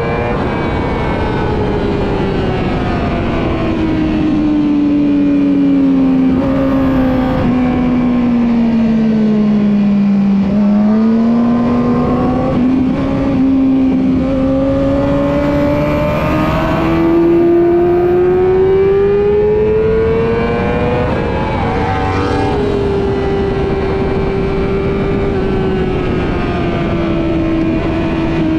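Yamaha YZF-R6 inline-four sport-bike engine under way on a racetrack. Its note falls slowly for about the first ten seconds, climbs steadily to a peak about twenty seconds in, breaks briefly, then holds at a steady pitch.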